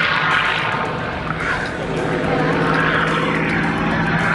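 Single-engine propeller warbird's piston engine droning steadily overhead during an aerobatic display.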